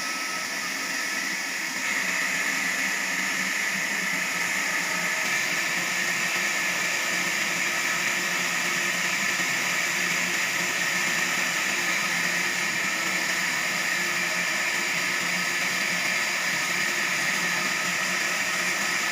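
Sawmill machinery running steadily, a continuous even mechanical noise with no breaks or changes.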